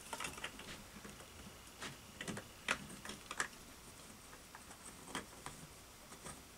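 Faint, scattered clicks and light knocks of a wooden dowel being worked into a 3D printed plastic pipe clamp by hand.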